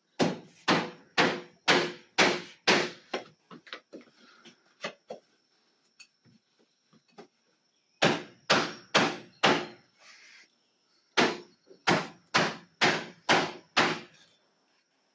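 Hammer blows on a block of wood held against a wooden door frame, knocking the frame loose from the wall opening. The strikes come about two a second in three runs, with a few lighter taps after the first run.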